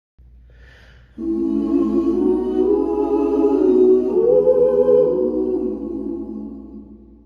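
A choir of several voices singing long held chords. They come in about a second in, move to a new chord about halfway through, then fade away.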